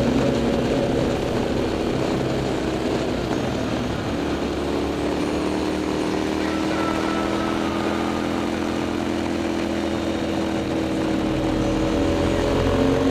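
KTM 990 SMT's V-twin engine running through a LeoVince aftermarket exhaust while riding, its pitch holding and then slowly sinking as the revs ease off, before rising again near the end.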